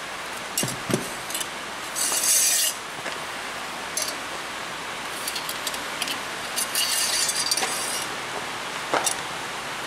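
Light metallic clinks and short scraping rubs as hand tools and a brake line are handled and bent, over a steady background hiss. There are two longer scrapes, one about two seconds in and one near seven seconds.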